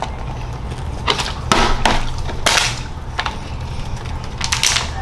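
Plastic water bottle being flipped and landing on a tabletop again and again: a run of sharp knocks and clatters, about six in all, the loudest about two and a half seconds in.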